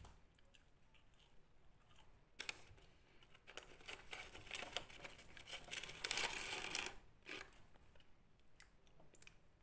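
Paper fast-food fries wrapper rustling and crinkling as fingers dig fries out of it. A brief crinkle comes about two seconds in, then a longer stretch of dense crackling from about three and a half to seven seconds, loudest near its end, and a last short crinkle.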